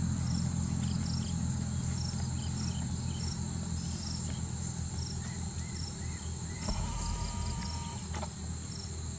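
Insects chirring in a steady high-pitched drone, with short chirps repeating above it, over a low rumble.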